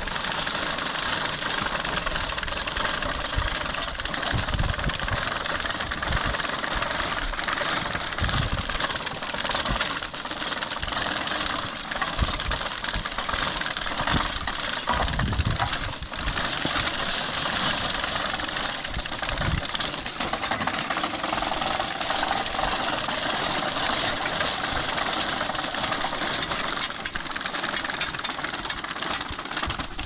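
Horse-drawn sickle bar mower cutting pasture grass: a steady, fast clatter of the reciprocating cutter knife and its ground-driven gearing, with occasional low thumps.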